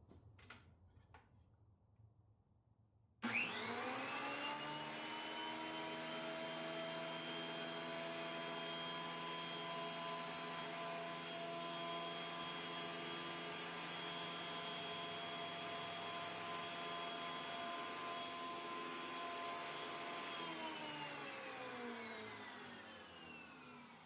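Delta 13-inch benchtop planer's motor and cutter head switched on about three seconds in, spinning up quickly to a steady high whine, then switched off near the end and winding down with falling pitch. It is the planer's first run in about ten years, with freshly flipped blades and just lubricated.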